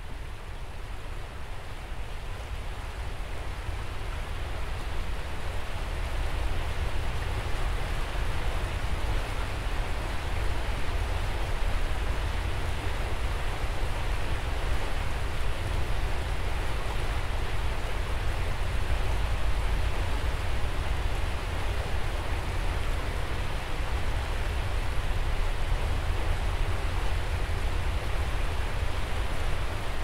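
Steady rushing noise with a deep rumble, fading in over the first several seconds and then holding even.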